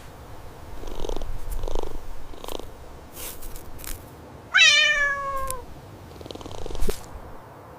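A cat purring, then one meow about halfway through that falls in pitch, followed by a short thump near the end.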